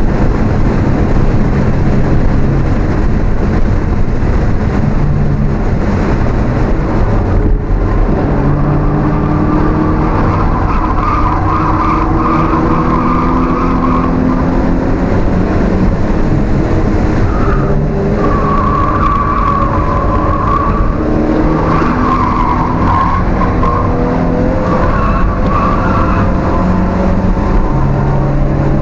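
Alfa Romeo 1750's twin-cam four-cylinder engine heard from inside the car at racing speed, revving up through the gears with repeated drops in pitch at each shift. Through the middle and later part, tyres squeal at times in the corners.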